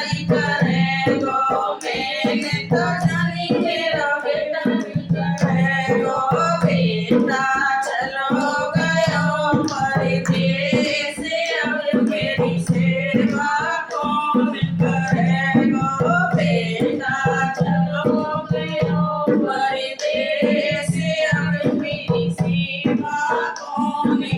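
Devotional Hindi bhajan: a sung voice holding long, wavering notes over instrumental accompaniment with a low sustained drone and percussion.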